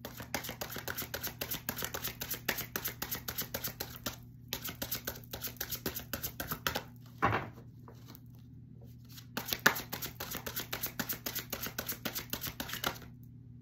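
A deck of tarot cards being shuffled by hand: three runs of rapid flicking clicks, separated by short pauses, with one brief louder sound about halfway through.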